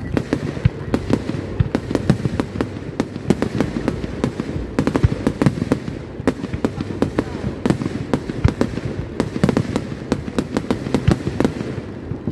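Fireworks display: aerial shells bursting and crackling, with many sharp bangs and pops in quick succession, several a second.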